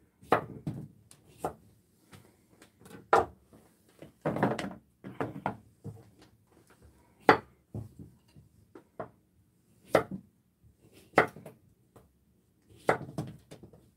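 Kitchen knife slicing a cucumber on a wooden cutting board. The blade knocks on the board in short, uneven strokes, roughly two a second, with brief pauses between runs of cuts.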